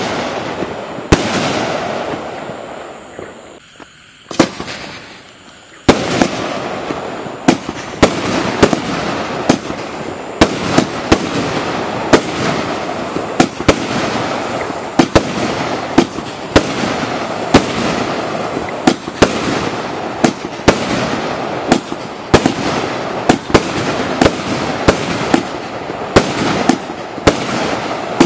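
Myth and Mayhem firework barrage (cake) firing. Sharp bangs come about two a second over a dense crackle, with a short lull a few seconds in before the bangs pick up again and run on steadily.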